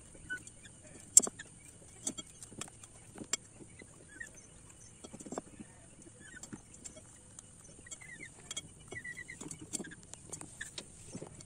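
Green pheasant × kampung chicken hybrid birds giving soft, short chirps, with a quick run of chirps near the end. Scattered sharp taps and clicks come through alongside, the loudest about a second in.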